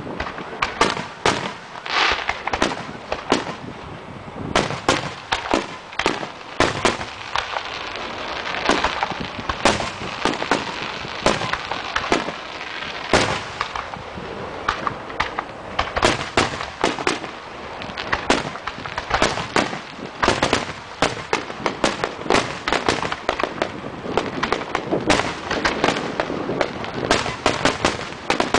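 Aerial fireworks shells bursting in rapid succession: a dense barrage of sharp bangs over continuous crackling.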